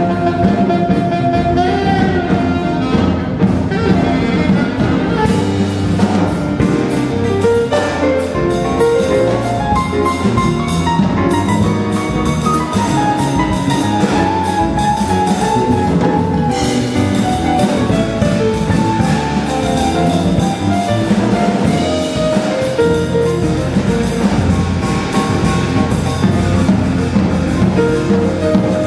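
Jazz quartet playing live: acoustic grand piano lines over electric bass and a drum kit. The cymbals come in more strongly a few seconds in.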